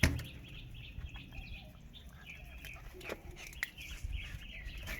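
Birds chirping in quick, repeated short calls, with a sharp knock right at the start and a few fainter clicks.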